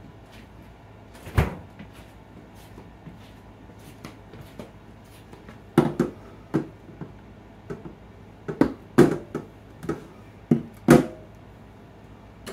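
Scattered knocks and clatter of kitchen containers being moved about while a dish of chopped onions is searched for. There is one sharp knock about a second in, then a run of louder knocks through the second half.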